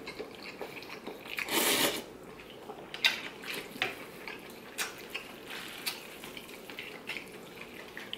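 Wooden chopsticks and a metal spoon working through ramen noodles and broth in a large bowl: a short wet swish of broth about a second and a half in, then a handful of light clinks of utensils against the bowl.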